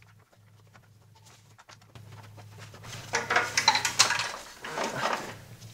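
Metal parts clinking and rattling as the Vanos solenoid is worked out of the front of the engine by hand: a few faint clicks at first, then a busy clatter of knocks about three seconds in that lasts around two seconds.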